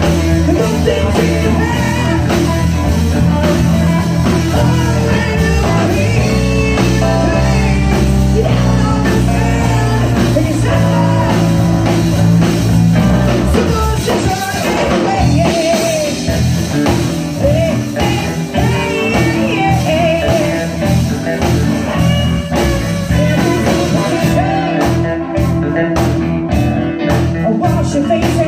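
A live rock band playing: electric guitars, bass, drums and keyboard, with a singer's voice over the band.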